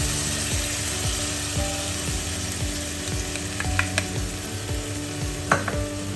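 Vegetables sizzling in hot oil in a saucepan, the sizzle thinning out as sweet and sour sauce is poured over them. A few light clicks of a spoon against the pan near the end.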